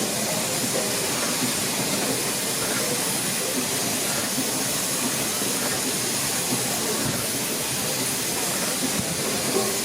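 Fowler steam ploughing engine giving off a steady hiss of steam.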